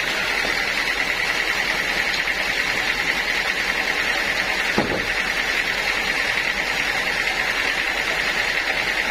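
Sawmill saw running through old teak wood, a steady high-pitched whine with a fast flutter. One short knock comes about halfway through.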